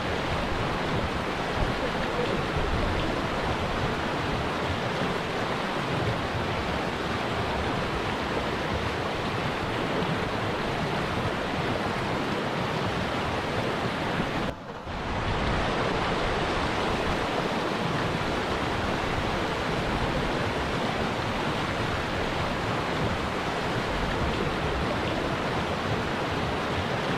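Fast snow-fed mountain river, the Baspa, rushing over rocks: a steady rush of water noise, with a brief drop about halfway through.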